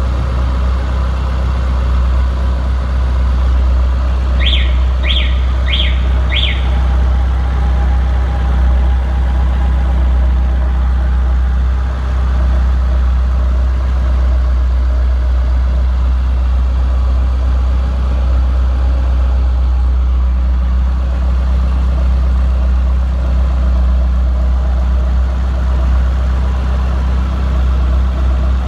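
Toyota 4A-GE 20-valve inline-four engine idling steadily. About four seconds in come four short, high chirps, evenly spaced over two seconds.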